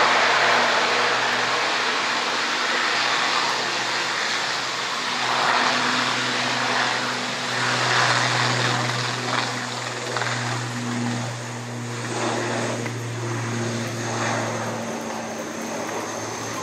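Twin turboprop engines of an IndiGo ATR 72 running as it taxis: a steady low propeller drone with a higher tone above it. The drone grows stronger about halfway through and eases near the end, over a broad hiss.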